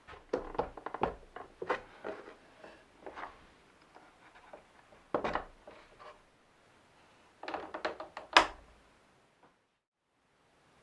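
Irregular knocks, thunks and clatter of objects being handled, in clusters, with one sharp loud knock a little past eight seconds in.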